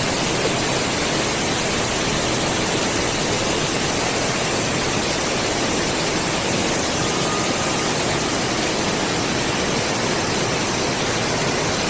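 A steady, loud rush of water noise from torrential rain and floodwater, even and unbroken throughout.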